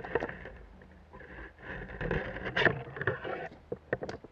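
Leaves and branches brushing and scraping against the camera and clothing as someone pushes through dense undergrowth. Irregular rustling with a few sharp clicks, the last two near the end.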